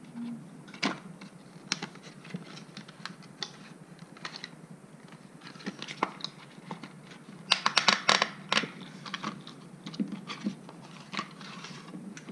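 Hands opening a small white cardboard box and sliding out its inner tray: scattered clicks, taps and scrapes of card and plastic, with a denser, louder flurry of clicking and rustling a little past halfway as the contents are taken out.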